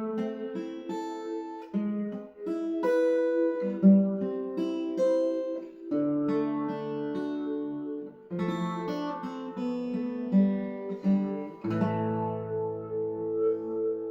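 LAG HyVibe smart acoustic guitar played loosely, picked and strummed through its built-in effect, so the notes sustain long and overlap. A low held note enters near the end.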